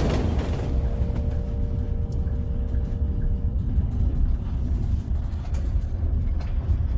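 Passenger train running, a steady low rumble with a few faint clicks, heard from inside the carriage. A held musical tone dies away about halfway through.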